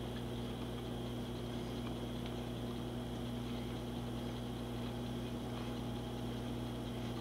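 A steady low hum with several fixed tones, from a running appliance or electrical noise in a small kitchen. It does not change throughout, and there are a few faint ticks.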